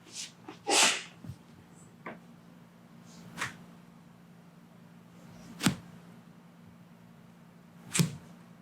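Joints cracking during a chiropractic adjustment: two sharp pops about two seconds apart in the second half, after a short swish and a few faint clicks early on, over a steady low hum.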